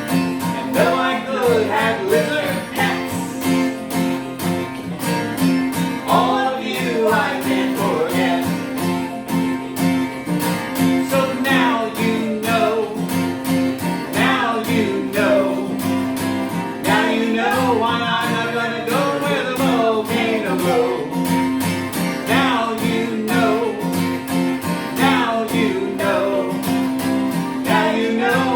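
A song: a voice singing over strummed acoustic guitar, with a steady rhythm.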